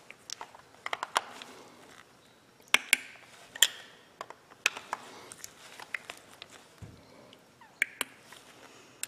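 Irregular sharp metallic clicks and taps from a screwdriver working the front housing screws of an Ingersoll Rand Thunder Gun 1/2-inch air impact wrench during reassembly. The two loudest clicks come about three and three and a half seconds in.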